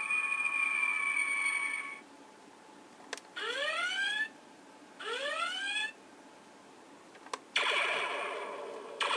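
Electronic sound effects from a Diamond Select Star Trek Enterprise model starship's speaker. A steady hum stops about two seconds in. After a click come two rising alarm-like whoops, then another click and a louder, denser effect that fades and starts again near the end.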